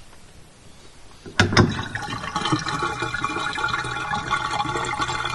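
Water rushing and gurgling down a newly installed bathtub drain, starting suddenly with a sharp click about a second and a half in.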